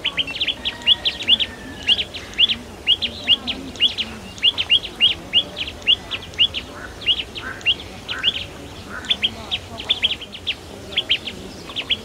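Small birds chirping: a continuous run of short, sharp, high chirps, about three or four a second, with a few lower call notes now and then.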